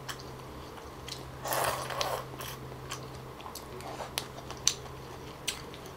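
A person eating thick rice-flour noodles and fish cake at close range: chewing, with a short slurp about a second and a half in and a few small sharp clicks.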